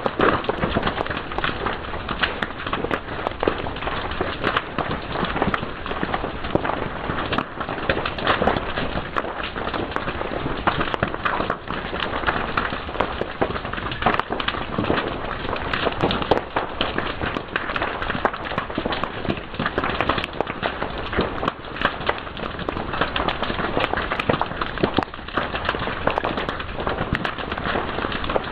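Fire crackling steadily, with dense irregular pops and snaps.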